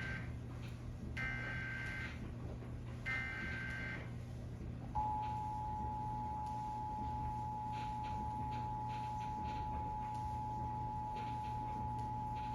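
Emergency Alert System test received over the radio: the warbling digital data header, with the end of one burst and then two more of about a second each, followed about five seconds in by the steady two-tone attention signal, all over a low steady hum.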